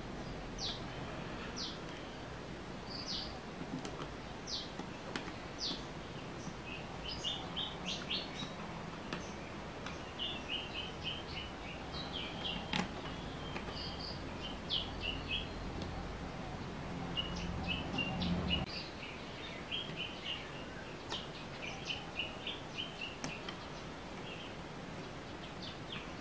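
Small birds chirping in many quick, short, high notes. A low steady hum runs underneath from about four seconds in and cuts off suddenly around eighteen seconds in.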